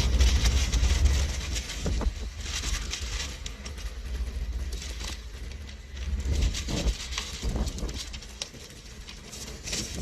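Wind buffeting the microphone as a low rumble. It is strongest at the start, eases after the first couple of seconds, swells again about two-thirds of the way through, then dies down.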